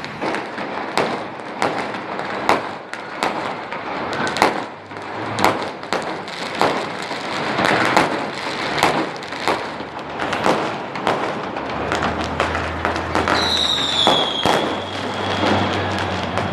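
Fireworks exploding in quick succession, sharp bangs one after another with crackle between them. Near the end a high whistle joins in, dipping slightly in pitch and then holding.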